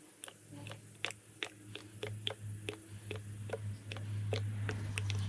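Thick mineral engine oil glugging from a canister into a motorcycle engine's filler, heard as a run of irregular gurgling clicks. A low steady hum underneath sets in about half a second in and grows louder toward the end.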